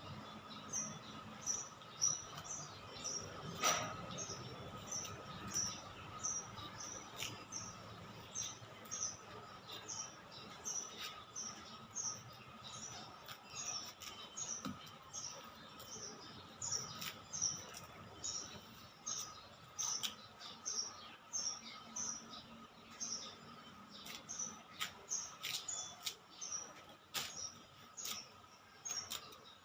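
A bird chirping over and over in short, high-pitched chirps, about two a second, with a faint steady tone beneath and a few sharp clicks scattered through.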